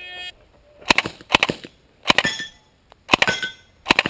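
A shot timer beeps once. Then a suppressed Uzi submachine gun fires about five short bursts, some followed by ringing from hits on steel targets.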